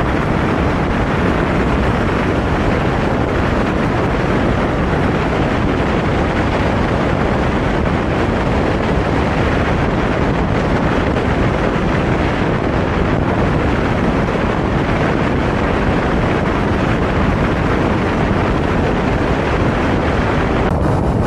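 Steady, loud wind noise buffeting the microphone of a moving motorcycle, with no clear engine note above it.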